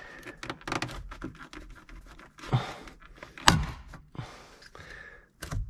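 Plastic trim panel and its plastic push fasteners being pried with a plastic trim removal tool: scraping and rubbing of foam and plastic, with one sharp click about three and a half seconds in and a few more clicks near the end.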